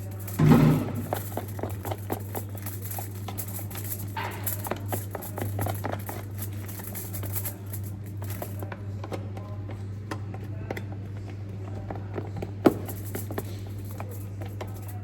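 Plastic spoon stirring slime mixed with shaving foam in a pot: many small irregular taps, scrapes and squishes. A louder rustling burst comes about half a second in, and a single sharp knock near the end.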